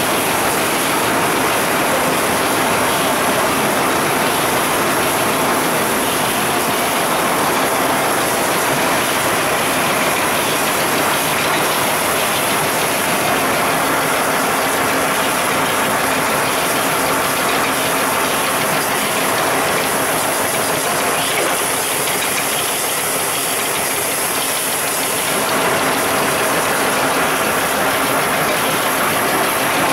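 Canning line machinery running in production: a loud, steady, dense mechanical clatter of rotating can-handling parts.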